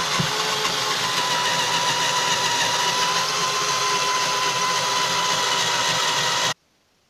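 Cordless drill-driver running steadily, drilling a pilot hole for a confirmat screw, its motor powered by two 6-volt batteries wired in series in place of its dead 18-volt pack. It cuts off suddenly about six and a half seconds in.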